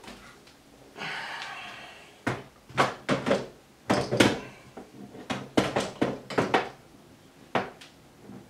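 Steel rackmount UPS chassis being slid into rack rails: a scrape about a second in, then a series of knocks and clunks as the case bumps and catches against the rails. It is binding because the fit is slightly off in width.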